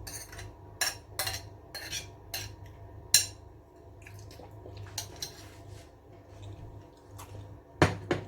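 Cutlery clinking and tapping against a dish, about a dozen light, irregular clinks with two louder ones close together near the end, as food is spooned out.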